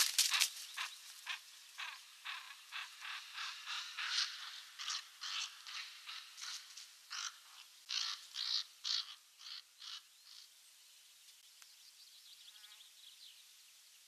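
Osprey giving a run of short, high, faint whistled chirps, two or three a second, that stop about ten seconds in.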